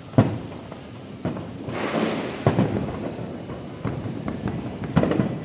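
Aerial fireworks exploding: a string of sharp booms, the loudest about a quarter second in, with a burst of crackle around two seconds in.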